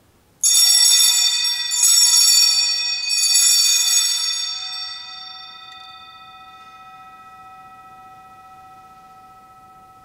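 Altar bells rung three times, starting about half a second in, then left to ring and fade slowly: the bells that mark the elevation of the consecrated host at Mass.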